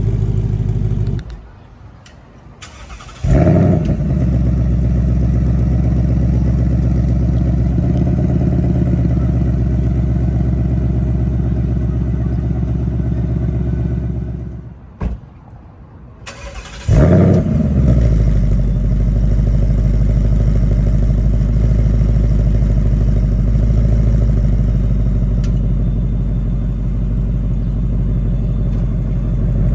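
A 2018+ Ford Mustang GT's 5.0-litre V8 is shut off about a second in, then cold-started about three seconds in with a brief rev flare before settling into a steady, loud idle. It is shut off again near the middle, then restarted about seventeen seconds in with another flare and idles steadily.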